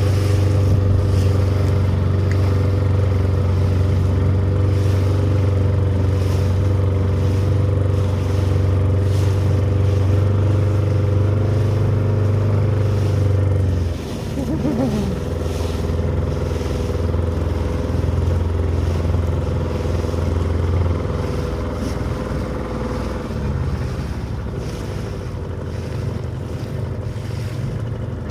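Boat engine running steadily with a low, even hum; about halfway through it drops a little in level and stays steady at the lower level.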